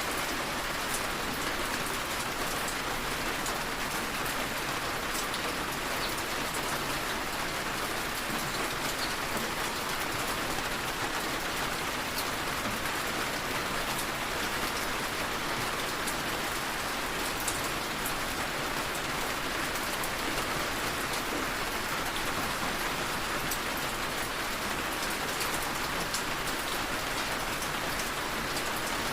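Steady rain falling on a surface, with the odd individual drop ticking sharply through the even hiss.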